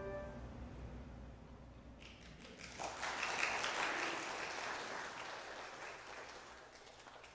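The last chord of a handbell choir dies away, then applause rises about two seconds in and fades out near the end.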